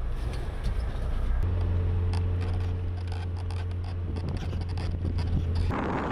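Car engine running at a steady speed, a low drone with scattered clicks and rattles. Near the end it cuts to wind noise on the microphone.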